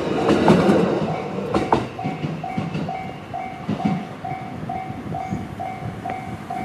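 The tail of a JR East E131-series electric train passing over a level crossing: wheels clack over the rail joints as its rumble fades over the first two seconds. The crossing's electronic warning bell, the JR standard tone, rings on at about two beeps a second.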